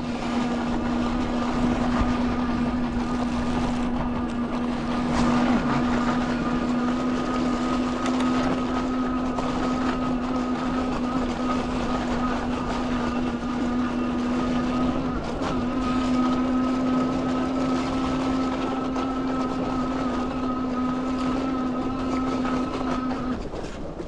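Rear hub motor of an Aventon Aventure fat-tire e-bike whining at a steady pitch under power, over the rushing noise of fat tires rolling through snow. The whine cuts off near the end while the tire noise goes on.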